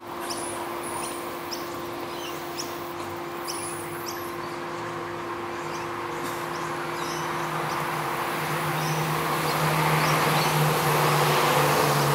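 Light rain hissing steadily, with birds chirping in short high calls, most often in the first half. In the second half a low droning hum grows louder.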